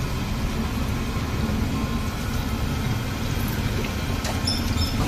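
Pav vada (batter-coated bread with spiced potato filling) deep-frying in a large iron kadai of hot oil: a steady sizzle over a low rumble, with a few light clinks of the slotted spoon near the end.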